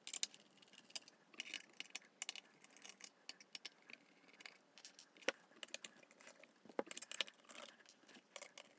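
Faint, irregular metallic clicks and light scrapes of a screwdriver working screws out of the sheet-metal case of an HP server power supply, with a few sharper ticks about halfway through.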